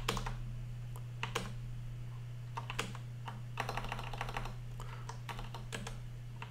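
Typing on a computer keyboard: scattered keystrokes in short clusters, with a quicker run of keys a little past halfway, over a steady low hum.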